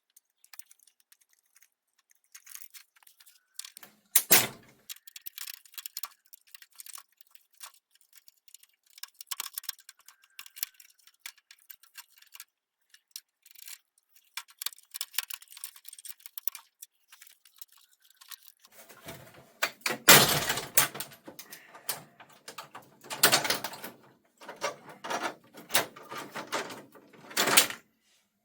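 Parts of a CRT television clicking and rattling as it is taken apart by hand: scattered small clicks, a louder knock about four seconds in, and denser, louder clattering in the last third.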